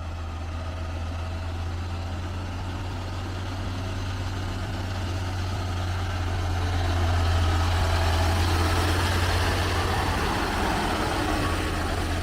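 Sitrak G7 540 heavy truck's diesel engine labouring uphill under load, a steady low drone that grows louder about halfway through as the truck comes closer, then eases slightly.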